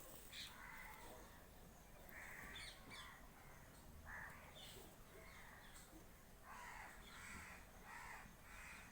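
Faint bird calls outdoors: short calls repeated at intervals, with a quick run of four or five calls near the end.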